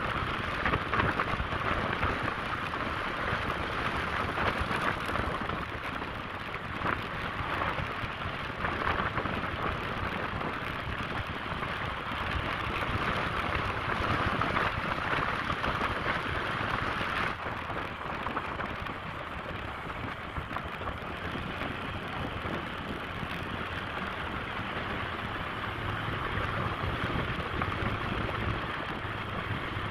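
Steady rushing wind and road noise from a moving motorcycle, with no distinct engine note standing out. The highest hiss thins out a little past the halfway point.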